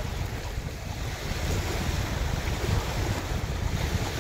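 Wind buffeting the microphone in a steady low rumble, over small bay waves washing against shoreline rocks.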